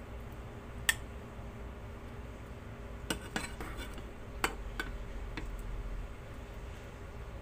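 Metal spoon clinking and scraping against a frying pan and a plate as pieces of pork adobo are scooped out and served: a handful of sharp clinks, the first about a second in and most between three and five seconds in.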